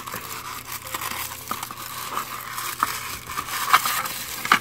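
White wrapping being pulled and crumpled out of a small cardboard box, a continuous crinkling crackle with a few louder clicks near the end.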